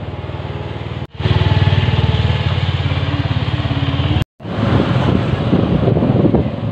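Motor scooter engine running steadily while riding, with road and wind noise on the microphone; the sound drops out for an instant twice, about a second in and again after four seconds.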